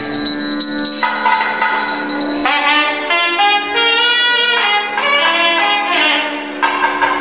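Nadaswaram playing a melody of held, sliding notes over a steady drone, the melody coming in strongly about two and a half seconds in.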